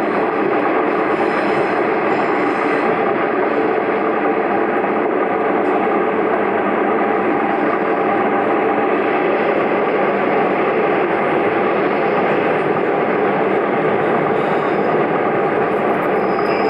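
Steady running noise inside the Iyonada Monogatari diesel sightseeing train as it travels at speed: an even rumble of engine and wheels on the rails.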